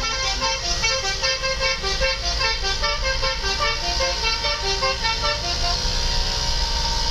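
Telolet multi-tone air horn playing a quick melody of short notes, stopping about six seconds in, over a steady low rumble of vehicle engine and road noise.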